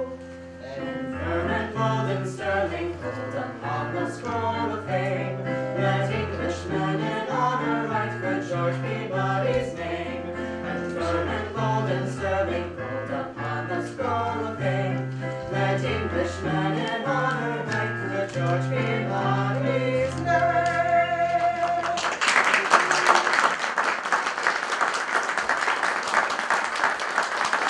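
A vocal trio singing with keyboard accompaniment under sustained bass notes, ending on a held chord about twenty seconds in. Then the audience applauds.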